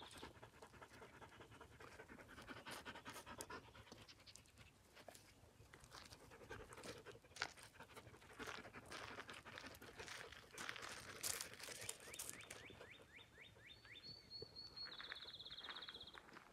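A blue heeler (Australian cattle dog) panting close by, with short rustles and steps on the mulch path. A high, fast trill comes in near the end.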